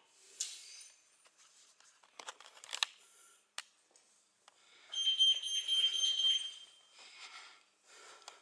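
A single steady, high-pitched electronic beep about a second and a half long, past the middle, over rustling handling noise. A few sharp knocks and clicks come earlier.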